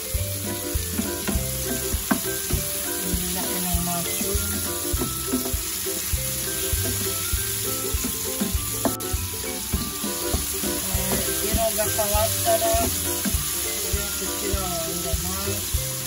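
Sliced shiitake mushrooms and onions sizzling steadily in oil in a nonstick frying pan, stirred with a wooden spatula that knocks and scrapes against the pan in frequent short clicks.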